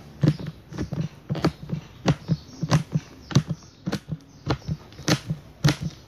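Kitchen knife chopping peanuts on a board: a steady run of sharp knocks, two to three a second.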